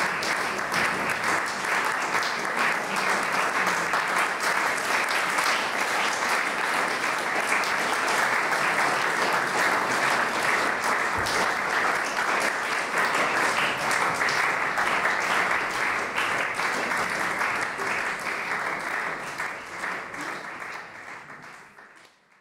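An audience applauding steadily, fading out over the last few seconds.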